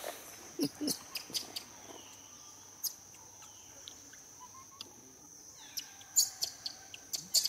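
Steady high-pitched insect drone with short, sharp chirps over it: a cluster about a second in, a single one near the middle, and a denser run near the end.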